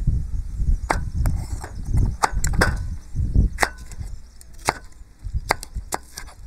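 Large kitchen knife chopping a yellow bell pepper on a thick round wooden chopping board: about a dozen sharp, irregularly spaced knocks of the blade striking the board.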